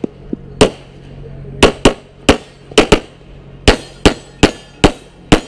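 Pistol gunfire in rapid pairs and strings, about a dozen sharp shots. There is a pause of about a second near the start, then the shots come a quarter to half a second apart.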